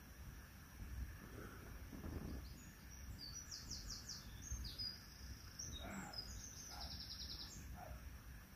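A songbird singing at dawn: faint, high, quick chirps and short trills, ending in a fast run of about ten repeated notes. This is the 4:30 am dawn birdsong that woke the camper.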